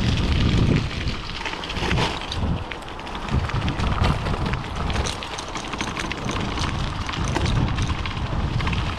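Bicycle tyres crackling over a dirt and leaf-covered trail, with many small clicks and rattles from the bike. Wind buffets the chest-mounted action camera's microphone in gusts and is loudest in the first second.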